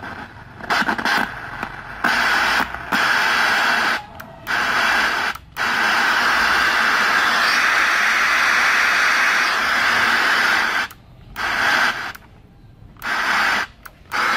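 Radio speaker hissing with static, cutting in and out in short bursts, with one unbroken stretch of about five seconds in the middle.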